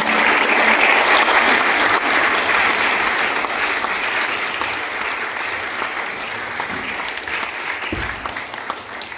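Audience applauding, loudest at first and slowly tapering off. A dull thump near the end.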